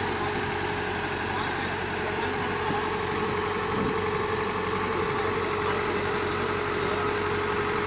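A machine's engine idling steadily, with a constant mid-pitched whine over it.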